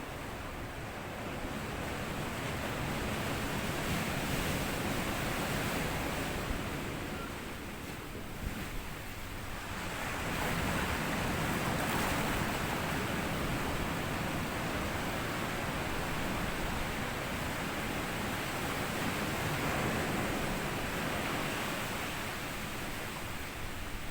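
Sea waves washing onto a sandy beach: a steady rush of surf that swells and eases, with a lull about eight seconds in before a longer swell.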